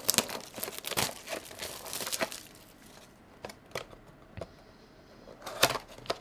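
Plastic shrink-wrap being torn and peeled off a cardboard trading-card box, crinkling and crackling in quick bursts for the first couple of seconds. A few small ticks follow, then one loud crinkle near the end.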